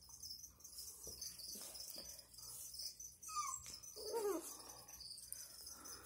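Two dogs play-fighting, with a short high squeak about three seconds in and a falling whine about a second later from one of the dogs, over a steady high hiss.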